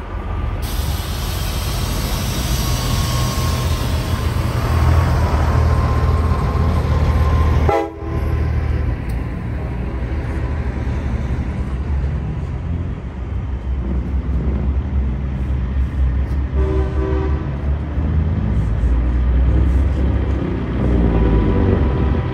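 Heavy trucks' diesel engines running with a steady low rumble, with short horn blasts: a brief one about eight seconds in and a second, about a second long, near seventeen seconds.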